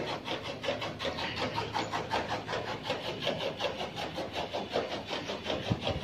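A small motor running steadily with a low hum and a quick, even pulsing.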